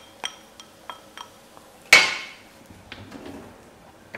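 A utensil knocking against a ceramic bowl: a few light clinks, then one louder ringing clink about two seconds in.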